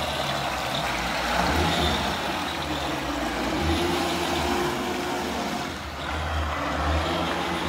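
Small remote-controlled net-towing boat running at speed, its motor and propeller churning the water in a steady rushing noise with a low rumble underneath.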